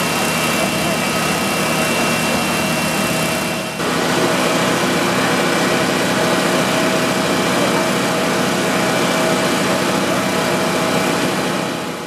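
Idling emergency-vehicle engines, a steady drone with a held whining tone. The sound changes abruptly about four seconds in.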